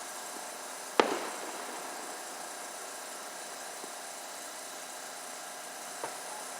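An aerial firework shell bursting with one sharp bang about a second in, then a much fainter pop near the end, over a steady hiss of outdoor background noise.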